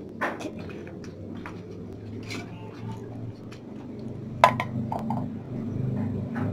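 Light knocks and clinks of utensils on a small frying pan, with one sharp ringing clink about four and a half seconds in, over a low hum that grows louder near the end.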